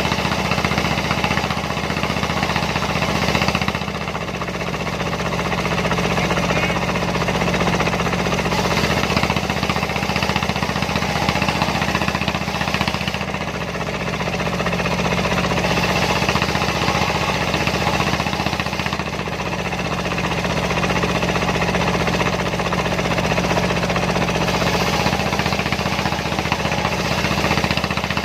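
Dongfeng diesel engine running steadily, driving a homemade circular sawmill; its level eases off briefly a few times.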